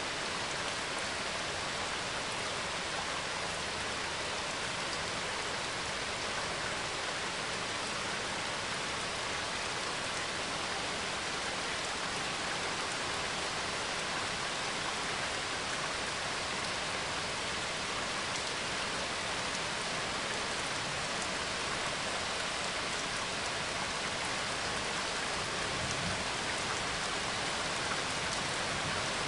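Steady rain falling: an even, unbroken hiss of many drops, with no thunder.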